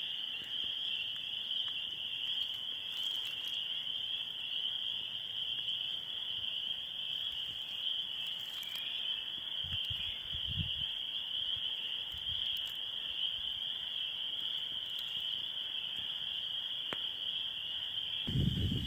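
Swamp ambience: a steady, unbroken high-pitched chorus of insects, with a brief faint low sound about halfway through and a louder low sound starting just before the end.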